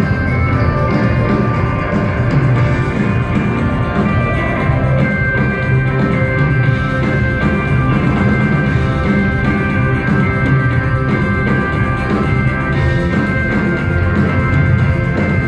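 Live rock band playing loud and steady through a concert PA: electric guitars over a drum kit.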